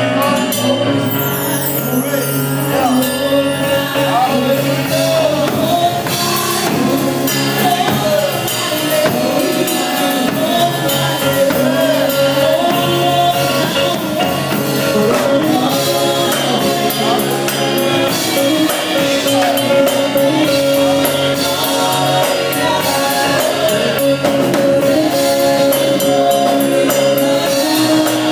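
Gospel worship music in church: singing over instruments, with percussion keeping a steady beat.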